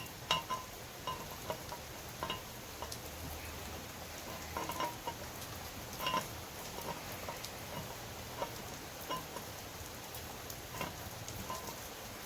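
MIG welder running a bead with .035 wire on 5/16-inch steel plate: a steady crackling sizzle with irregular louder pops.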